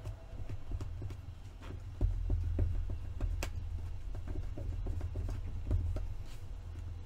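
Hands working paper on a craft table: scattered light taps and clicks over a low rumble of bumps and handling, which gets louder about two seconds in.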